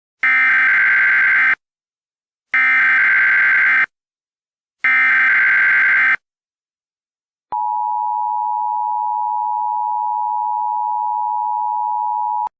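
Emergency Alert System header: three identical bursts of the SAME digital data tones, each about a second and a quarter long. About halfway through they are followed by the EAS two-tone attention signal (853 and 960 Hz), held steady for about five seconds, announcing a new alert message.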